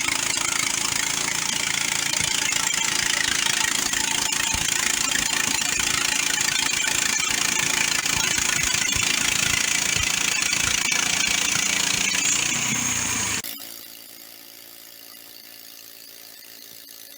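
MechMaxx band sawmill's gasoline engine and blade running steadily with a loud engine drone and a hissy high sound. About thirteen seconds in it drops abruptly to a much quieter steady hum.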